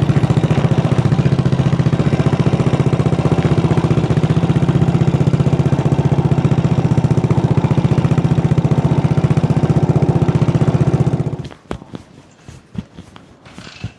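Single-cylinder motorcycle engine idling steadily with an even, fast exhaust pulse, then switched off about eleven seconds in, leaving a few light clicks and knocks.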